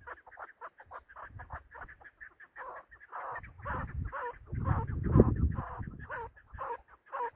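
Chukar partridge calling: a quick run of short clucking 'chuk' notes that builds into louder, repeated calls through the middle. A low rumble rises under the calls near the loudest part.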